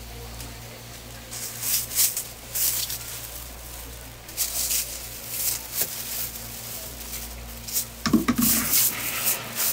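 Plastic bag crinkling and rustling in gloved hands as seafood is bagged, in repeated crackly bursts over a steady low electrical hum. A short, louder low sound with a wavering pitch comes about eight seconds in.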